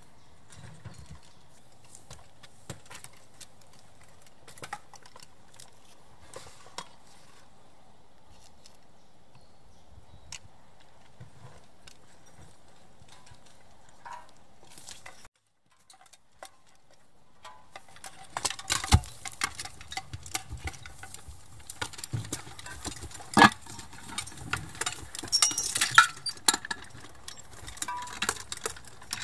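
Small clinks and rattles of soldiers' gear and footsteps. A little past halfway the sound drops to total silence for about a second. After that come louder, sharp metallic clanks and knocks as a mortar is handled and set on its bipod mount.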